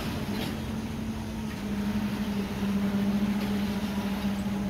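Freight train passing close by: a steady diesel-locomotive drone with a low hum over the rumble of the train. It gets louder about a second and a half in.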